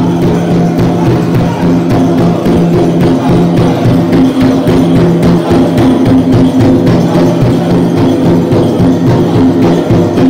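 Powwow drum group playing a fancy dance song: a large drum struck by several drummers in a fast, steady beat, with men singing over it.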